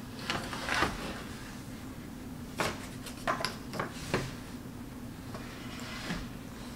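Wooden crib parts knocking and clacking as they are handled and fitted together: about half a dozen short sharp knocks scattered through, over a steady low hum.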